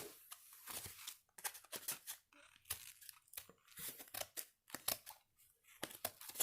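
Paperboard box of a Pokémon TCG card set being torn open by hand: irregular rips and crinkles of cardboard.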